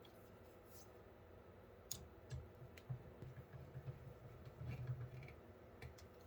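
Faint, scattered clicks and soft knocks of computer case fans being handled and fitted to a PC case's lower fan bracket, most of them between about two and five seconds in.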